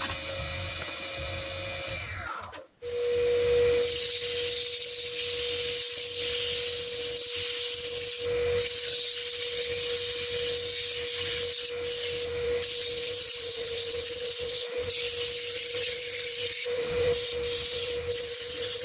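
Record DML320 wood lathe running with a steady hum. For the first couple of seconds a hand tool cuts the spinning wooden acorn cap; after a brief break, sandpaper held against the spinning piece gives a steady hiss.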